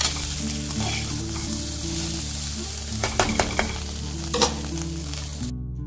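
Boiled potato pieces frying in oil and ghee in a pan, a steady sizzle with a spatula clicking against the pan a few times around three and four seconds in. Soft background music runs underneath, and the sizzle cuts off suddenly just before the end.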